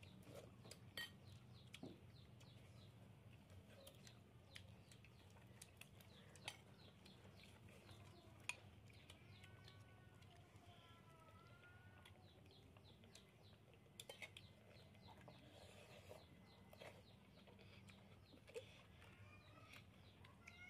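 Near silence over a low steady hum, with scattered faint clinks of spoons and fingers on china plates and bowls. A faint wavering call is heard in the middle.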